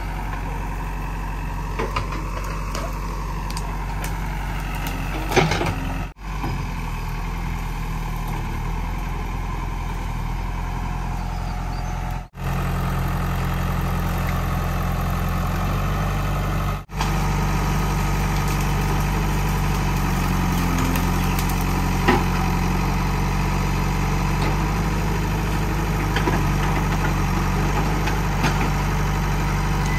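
JCB 3DX backhoe loader's Kirloskar diesel engine running steadily while the backhoe works, with a few sharp knocks from the bucket and wood.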